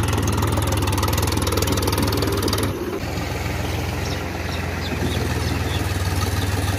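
Powertrac Euro 50 tractor's three-cylinder diesel engine running steadily as the tractor drives along, a loud even chugging throughout. About three seconds in it becomes a little quieter and duller.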